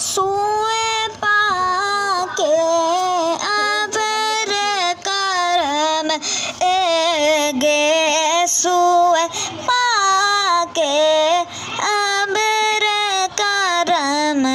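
A high voice singing a slow, melodic song with long held notes that bend and waver.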